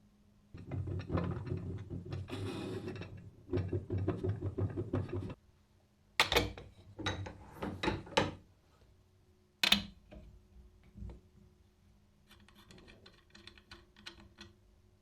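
Antique hand-cranked coffee grinder being turned, its mechanism rattling with fast clicks for about five seconds, then a few separate sharp knocks and some lighter ticking.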